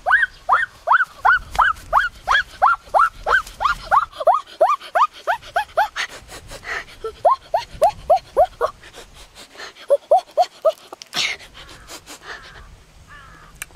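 An animal giving a long run of short, high yelping cries, about three a second, each rising then falling in pitch. The cries grow lower and sparser with short pauses, and a brief rustling burst comes near the end.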